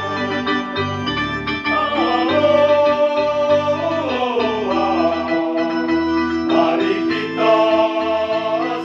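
Choir singing with electronic keyboard accompaniment, in long held notes over a bass line that moves in steps.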